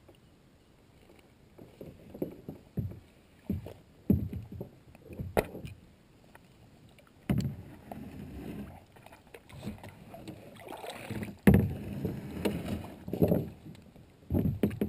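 Paddling sounds from a plastic kayak: irregular water splashes and dull knocks against the hull. Two sharper knocks stand out, about five seconds in and again past the middle.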